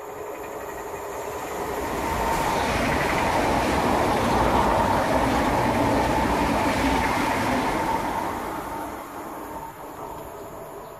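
VR Sm3 Pendolino electric express train passing close at speed: a rushing of wheels and air that swells over a couple of seconds, peaks midway and fades as the train moves away, with a steady high whine through it.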